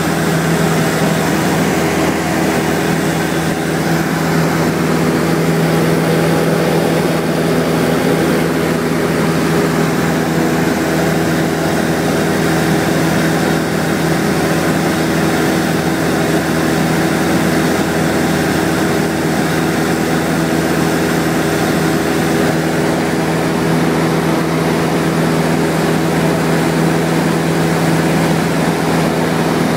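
Cessna 172SP's four-cylinder Lycoming IO-360 engine and propeller droning steadily in flight, heard from inside the cabin.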